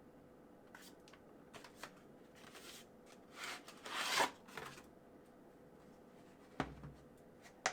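Packaging and a plastic tool case being handled and opened: faint scattered clicks, a short rustle about three to four seconds in, and two sharper clicks near the end.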